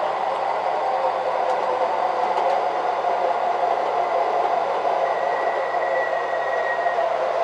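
Several MTH Proto-Sound 3 O-gauge model streetcars running on an MTH RealTrax loop: a steady whirring rumble of motors and wheels on the track.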